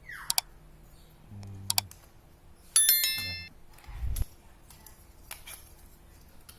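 Hard drive and HDD caddy parts being handled and fitted together: sharp small clicks, a bright metallic clink that rings briefly about three seconds in, then a dull knock about a second later.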